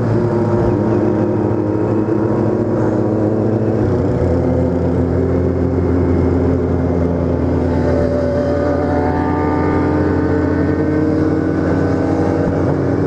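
Kawasaki Z750's inline-four engine running as the motorcycle rides along. Its note changes about four seconds in, then climbs slowly as the bike speeds up.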